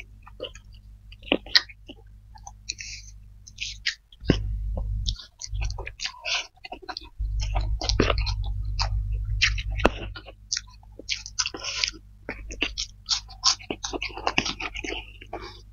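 Close-miked chewing and lip-smacking of people eating spicy fried flat rice noodles (kwetiau goreng) with fried eggs, in many irregular wet clicks and smacks. A low hum underneath grows louder twice, about four seconds in and from about seven to ten seconds.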